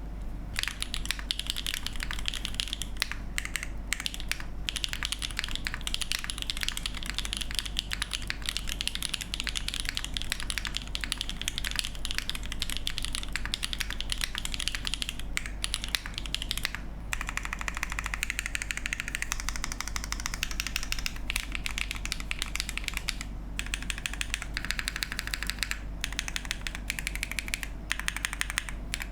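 Fast continuous typing on a Keycult 2/65 mechanical keyboard with hand-lubed Sarokeys Strawberry Wine switches on an aluminium plate: a dense stream of key clacks, broken by a few short pauses.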